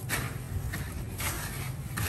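Dry breadcrumbs rustling and crunching under hands pressing batter-coated squid into a tray of crumbs, a breading step before frying; short scrunching swishes come about two or three times a second over a low steady hum.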